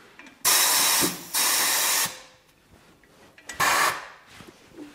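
Compressed air hissing from a tyre changing machine's pneumatic valves as its arms and controls are worked. There are three sharp hisses: two of under a second each, back to back, and a shorter one a few seconds later.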